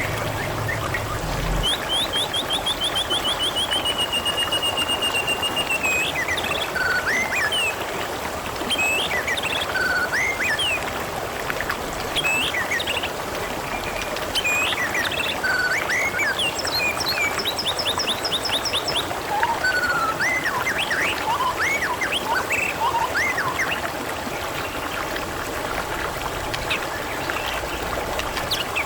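Water trickling and splashing steadily, with small birds chirping over it; a fast trill of repeated notes sounds about two seconds in, and another run of repeated notes near the middle.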